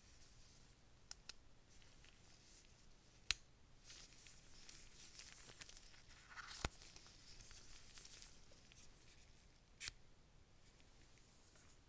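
Packaging being handled and opened: a stretch of soft tearing and rustling of film or paper, with a few sharp clicks and taps, the loudest about three seconds in.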